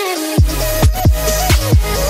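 Background music: an electronic beat with deep kick drums that drop in pitch, repeating a few times a second under a synth melody. The bass drops out briefly at the start.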